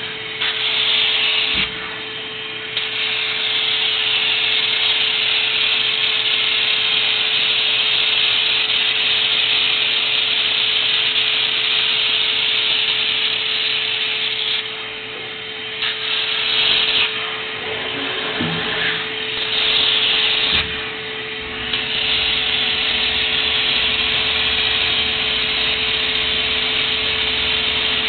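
CNC laser welder welding 304 stainless sheet into thicker 304 plate: a steady, loud hiss with a constant hum beneath it. The hiss drops away briefly several times, mostly in the second half.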